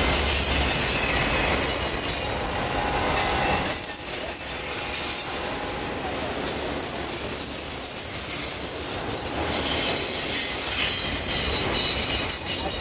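Autorack freight cars rolling past: a steady rumble of steel wheels on rail, with high-pitched wheel squeal that is strong at first, fades, and comes back near the end.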